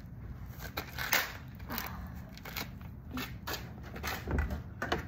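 Parts of a smashed Samsung TV cracking and snapping as they are pried and broken off: a run of irregular, sharp cracks and clicks.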